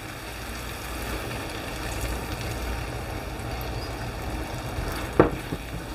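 Tomato and pepper gravy simmering in a frying pan, a steady bubbling over a low hum, with a single sharp knock about five seconds in.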